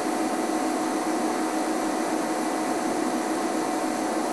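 Steady hiss with a low, even hum underneath and no distinct events.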